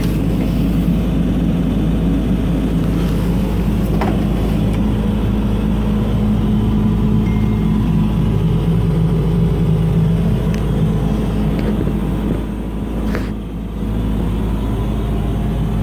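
John Deere 75D compact excavator's diesel engine running steadily, heard from inside the operator's cab as a constant low hum. A few light clicks and knocks, from handling in the cab, come through over it.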